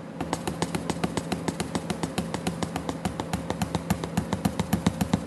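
Rapid, evenly spaced mechanical clicking, about seven clicks a second, over a steady low hum.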